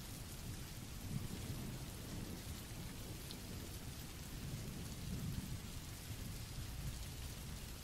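Steady rain of a recorded thunderstorm, with low rumbles of thunder swelling now and then.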